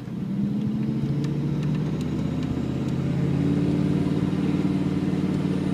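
GM 6.5 L turbo diesel V8 pulling under load as boost builds, heard from inside the cab through a straight-piped exhaust with no muffler. It gets louder just after the start as the throttle opens, then holds and climbs a little in pitch as the truck accelerates.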